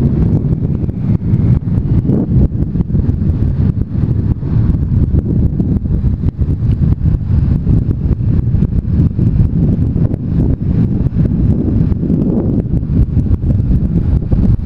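Steady low wind rush buffeting a GoPro action camera's microphone on a moving Honda CB500X motorcycle, mixed with the bike's engine and road noise.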